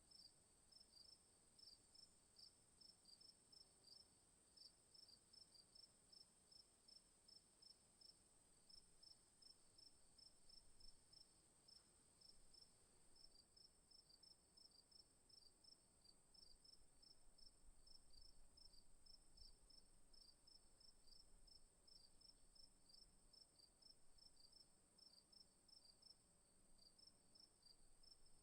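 Faint insect chirping: rapid repeated chirps in short runs over a steady high whine.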